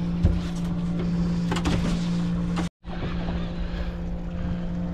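Boat motor running steadily with a low hum, under wind and water noise. The sound cuts out briefly about halfway through.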